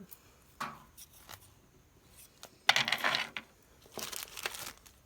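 Plastic bag crinkling and rustling in short bursts as bead strands are handled. The loudest burst comes a little under three seconds in, and a smaller one about four seconds in.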